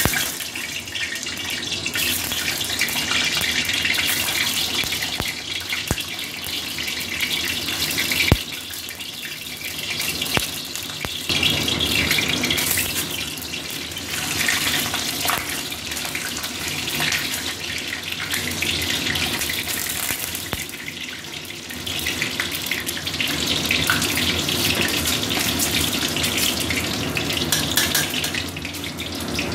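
Peeled hard-boiled eggs frying in hot oil in a steel wok, a steady sizzling that swells and dips, with a sharp click about eight seconds in.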